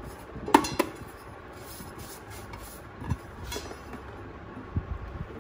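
A stainless-steel measuring cup knocking against metal vessels: a few sharp ringing clinks, the loudest about half a second in, with more around three and a half seconds and near the end.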